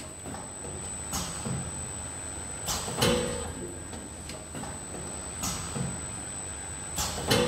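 Automatic monodose strip filling and sealing machine running: its pneumatic clamps and cylinders actuate with sharp clacks and short air hisses every one and a half to two and a half seconds, the loudest about three seconds in, over a steady machine hum and a constant high whine.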